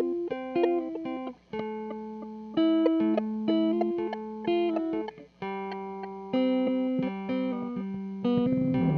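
Electric guitar, a 1976 Gibson ES-335, played through a Red Panda Particle granular delay pedal: a run of clean single notes with sharp attacks, cutting out briefly twice.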